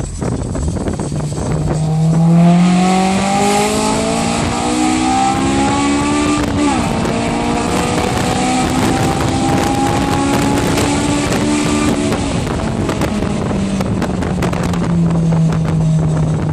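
Honda S2000's four-cylinder engine through an Invidia aftermarket exhaust, accelerating with the revs climbing for several seconds, a quick upshift about six and a half seconds in, then pulling on more gently before the revs ease off and settle.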